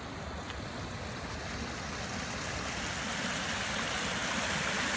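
Small woodland stream swollen with storm runoff, rushing and tumbling over a low drop in white water. It is a steady rush that grows gradually louder.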